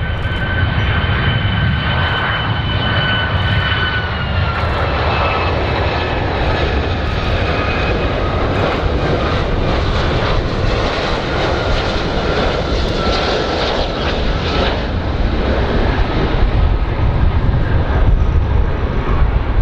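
Boeing 757-200 airliner on final approach, gear down, its twin turbofan engines running with a steady high whine over a low rumble. The whine drops slightly in pitch about four seconds in.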